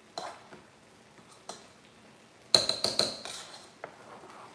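Potato masher knocking and clinking against a steel saucepan while boiled potatoes are mashed: a couple of light knocks, then a quick run of sharp, ringing metal clinks about two and a half seconds in.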